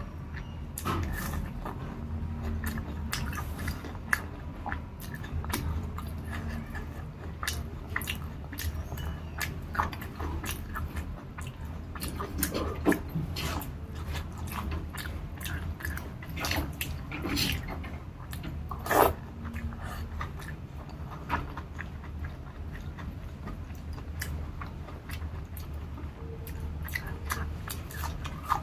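Close-miked chewing and biting of a rice-and-curry meal: irregular wet mouth clicks and small crunches over a steady low hum, with a sharper click about nineteen seconds in.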